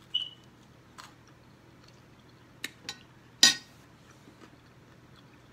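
Close-up eating sounds of crunchy fried fish: a short metallic clink near the start, then scattered crunches and mouth clicks while chewing, the loudest crunch about three and a half seconds in.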